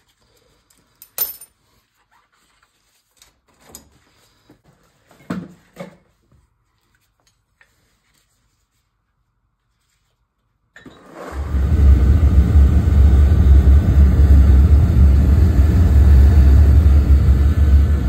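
A few light clicks and knocks, then about eleven seconds in the oil burner of a Burnham boiler fires up, freshly fitted with new electrodes: it goes from silence to a loud, steady running rumble with a strong deep hum.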